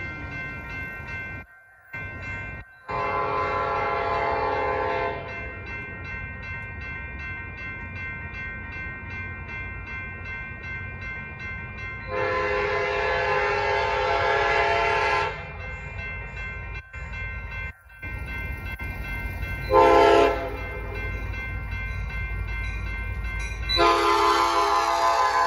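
Railroad crossing bells ringing steadily while an approaching train's Nathan P5 five-chime horn sounds the grade-crossing signal: two long blasts, a short one and a final long one that carries on to the end. The low rumble of the approaching train grows under it near the end.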